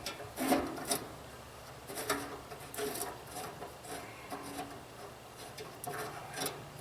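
Irregular scraping and rubbing with a few short knocks, from a used wood chipper being handled and moved by hand.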